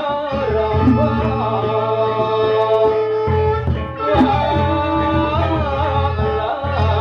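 Sasak gendang beleq gamelan playing, led by a man singing long, ornamented held notes over bamboo flute, kettle gongs and large drums, with a steady low drone beneath.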